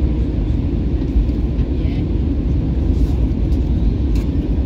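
Steady low rumble of engine and airflow noise heard inside the cabin of an Airbus A320-family airliner descending on approach to land.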